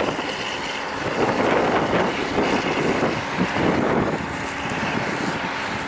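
KhTZ T-150K tractor's diesel engine running steadily under load as it pulls a PLN-5-35 moldboard plough, with wind buffeting the microphone.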